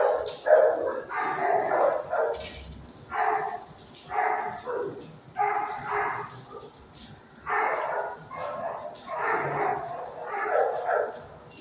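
Dogs in a shelter kennel barking over and over, about one bark a second.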